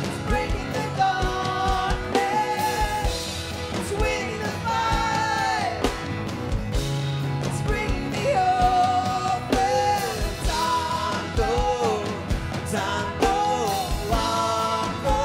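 Live gospel band playing with sung vocals: held, gliding sung notes over a steady drum beat.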